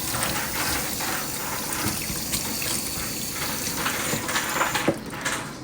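Running water splashing onto and through a child's hair as it is wetted for washing, stopping about five seconds in.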